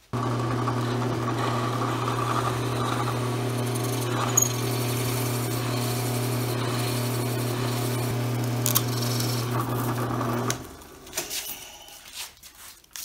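Drill press motor running steadily with a Forstner bit boring out holes in an acrylic sheet. The motor stops about ten and a half seconds in, leaving a few faint clicks.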